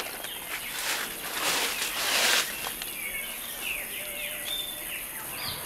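Outdoor ambience with birds chirping in short, high, curving calls in the second half. About a second and a half in there is a burst of noise lasting about a second.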